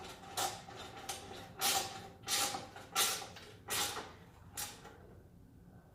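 Capri 4-in-1 ratcheting wrench worked back and forth on a bolt: about six short ratcheting strokes, under a second apart, stopping a little before the end.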